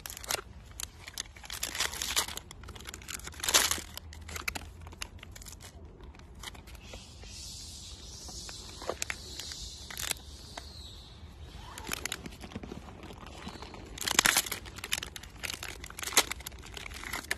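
Plastic snack wrapper crinkling and tearing in crackly bursts as it is pulled open, with the loudest bursts about three and a half seconds in and again about fourteen seconds in.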